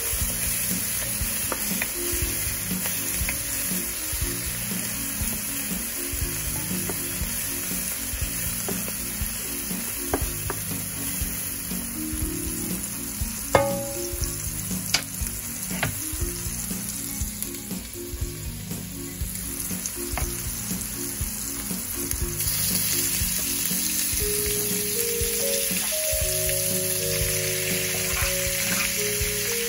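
Diced peppers, scallions and long beans sizzling in oil in a metal wok, stirred with a wooden spoon that now and then clicks against the pan. The sizzle grows louder about two-thirds through.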